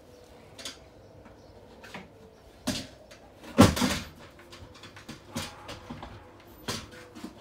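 Handling noises: a few separate knocks and clunks as gear is moved about on a boat's deck, the loudest a little past halfway.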